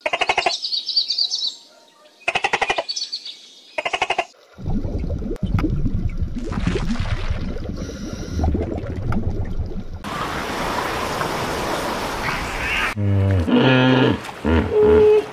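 Flamingos calling in three bursts of pitched honks over the first four seconds, then a low rumbling wash and about three seconds of steady hiss, and near the end loud, deep grunting calls from hippos.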